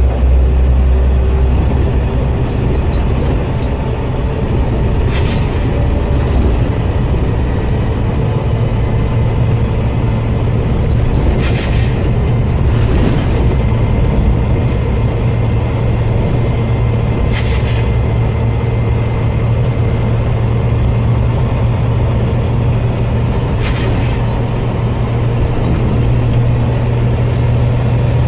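Scania OmniCity single-deck bus running with a steady low engine drone, its air system letting out a short sharp hiss, a 'sneeze', five times, about every five or six seconds. The uploader puts these air releases down to worn-out air tanks.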